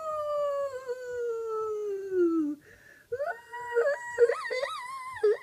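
Two long howls. The first slides slowly down and fades out about two and a half seconds in. After a short pause, a second, higher howl wavers and jumps up and down in pitch, then breaks off near the end.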